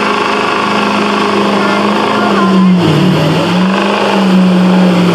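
Ford Super Duty diesel pickup engine held at high revs under heavy load while pulling a weight-transfer sled. About three seconds in the pitch dips briefly and climbs back.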